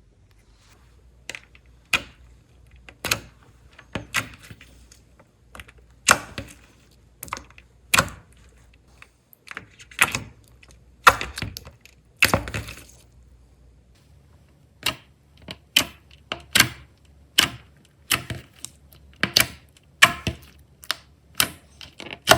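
Clear slime being mixed and pressed by hand, making a series of sharp wet pops and clicks about once a second. The pops come faster near the end.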